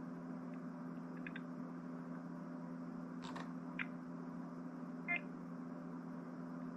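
Steady low hum, with a few faint clicks and short high chirps; the loudest chirp comes about five seconds in.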